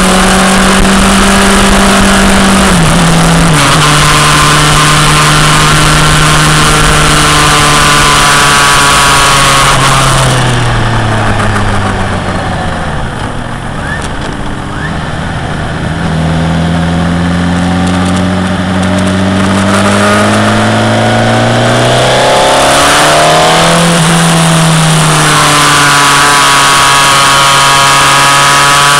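Motorcycle engine heard from on board at speed over steady wind rush. It shifts up about three seconds in, then the engine note falls and quietens through the middle as the bike slows for a bend, climbs again as it accelerates out, and shifts up once more near the end.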